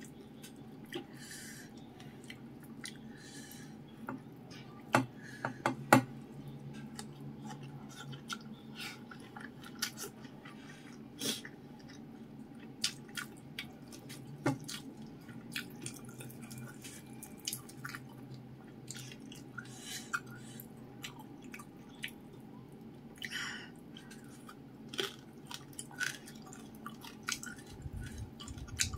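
Close-up eating sounds of crispy fried fish and rice eaten by hand: chewing and lip smacking mixed with scattered soft clicks of fingers picking at the fish on the plate, a couple of sharper clicks about five and six seconds in. A low steady hum sits underneath.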